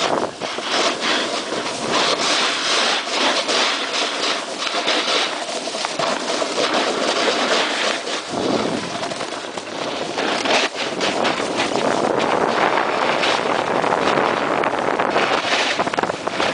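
Snowboard sliding and scraping over packed snow on a downhill run, a continuous hiss broken by many short rasps, with wind rushing over the microphone.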